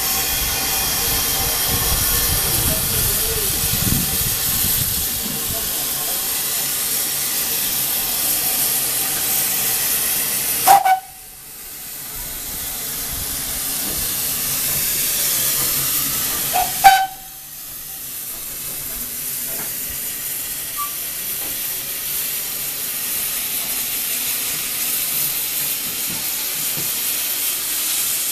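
Narrow-gauge Beyer Peacock 0-6-0 tank locomotive 'The Earl' standing in steam, hissing steadily, with two short whistle toots about six seconds apart.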